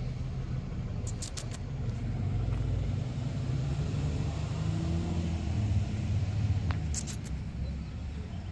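Steady low rumble of a vehicle running, with a few light clicks about a second in and again near seven seconds.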